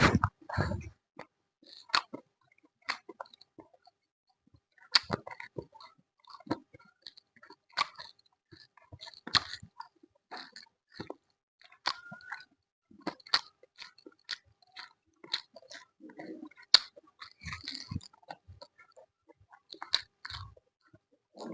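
Close-up sounds of a person chewing and biting food: irregular wet clicks and crunchy crackles, a few a second, with a short pause about four seconds in.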